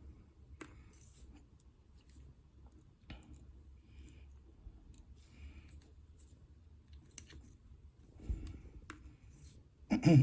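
Faint, scattered light clicks of small metal lock parts (the wafers and plug of a disassembled EVVA DPI cylinder) being handled and sorted. A brief louder sound comes near the end.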